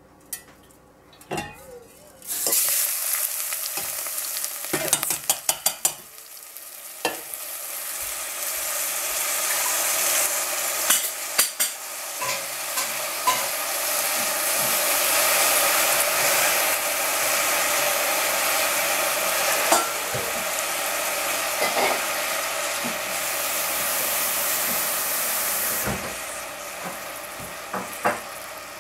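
Freshly washed rice sizzling in hot cooking oil in a stainless steel saucepan. The hiss starts suddenly about two seconds in as the rice goes into the pan, and it eases off near the end. The rice is stirred in between, with a few sharp clicks of a utensil on the pan.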